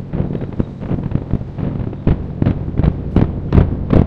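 Distant aerial firework shells bursting in a quick series of booms, coming thicker and louder from about halfway through.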